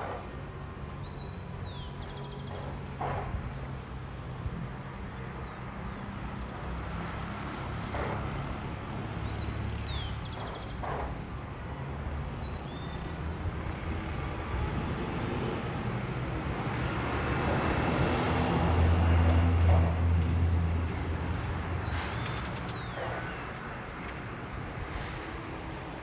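A motor engine running with a steady low hum that swells louder about two-thirds of the way through, then eases off. Short high whistles that fall in pitch cut through now and then.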